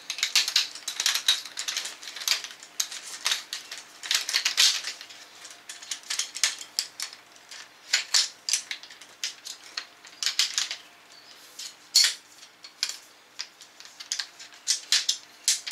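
Shock-corded aluminium frame poles of a Trekology YIZI GO Plus folding hiking chair being pulled apart and bundled together, the tube sections clicking and clattering against each other in irregular bursts.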